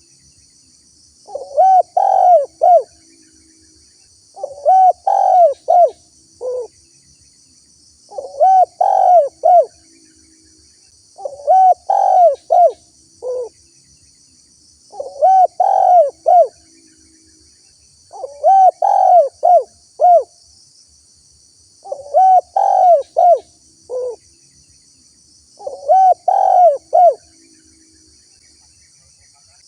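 Spotted dove (tekukur) cooing. Each phrase is a short run of rising-and-falling coo notes, most ending on a lower note, and the phrase repeats about every three and a half seconds.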